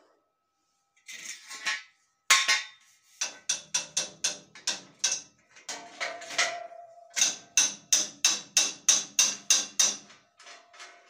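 Hammer blows on the welded steel frame of a homemade band saw mill, in two runs of quick, even strikes at about four a second. Before them come a brief scrape and one heavy knock.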